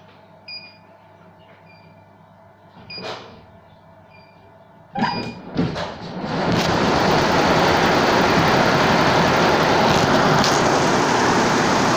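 CNY computerised embroidery machine: faint short beeps and a few soft knocks, then about five seconds in some loud knocks as it starts, and from about six and a half seconds in it runs loud and steady.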